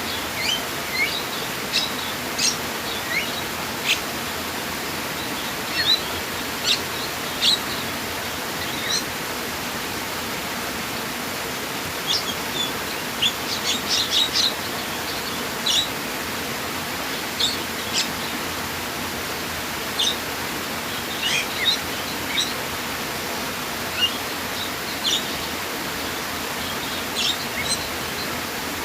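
Steady rush of running water with small birds chirping on and off over it, short high calls scattered throughout and thickest about halfway through.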